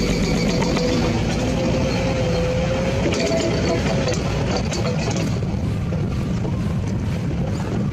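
Radio-controlled toy vehicle running: a steady mechanical buzz of small motors and gears, with a faint whine that steps up slightly about three seconds in.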